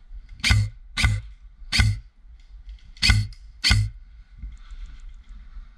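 Airsoft rifle firing five single shots at uneven intervals, each a sharp crack with a low thump.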